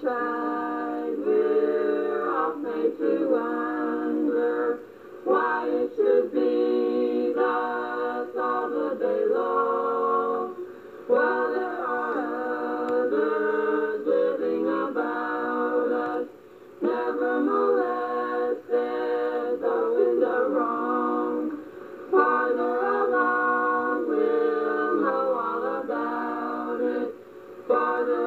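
Small family vocal group of two young women and a young man singing a cappella in harmony, phrases broken by short breath pauses every five or six seconds. A home cassette recording copied several times, so it has no treble.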